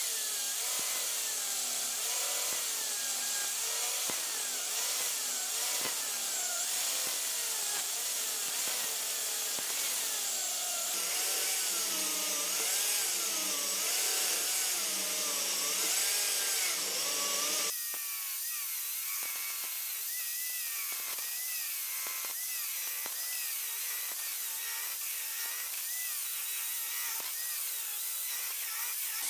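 Corded electric chainsaw plunge-cutting into the side of a log, the motor's whine wavering up and down in pitch as the chain bites and eases off in the wood. The sound changes abruptly about two-thirds of the way through.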